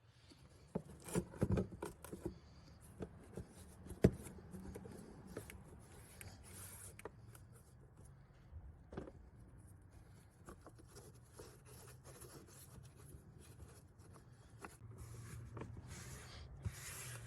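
Hands refitting a plastic engine cover onto the engine: rubbing and scraping with scattered light clicks and knocks, and one sharp knock about four seconds in.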